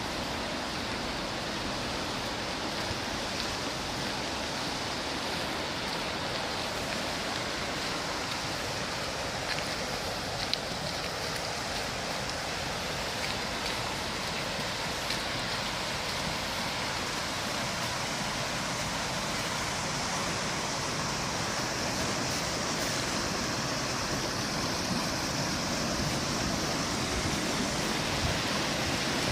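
Steady rushing noise of running water, even and unbroken, with a few faint ticks.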